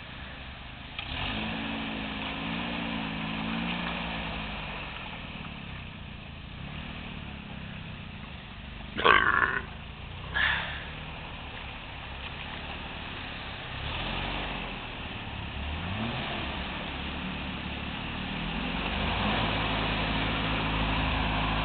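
Toyota pickup's engine running under load as the truck crawls through deep mud, revving up and easing off with the throttle and louder near the end. Two short loud sounds cut in about nine and ten and a half seconds in.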